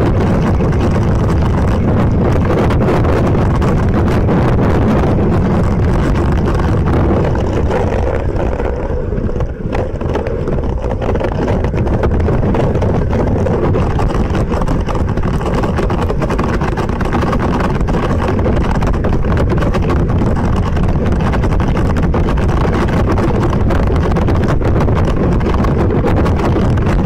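Loud wind buffeting the microphone of a kitesurfer's camera, mixed with the rush and slap of the kiteboard skimming over choppy water. It eases briefly about nine seconds in.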